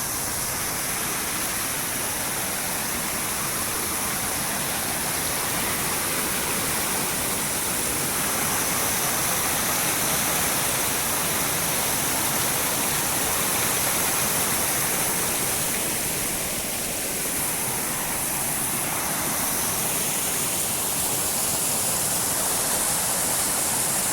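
Water pouring steadily over a small dam, its flow swollen by heavy rain.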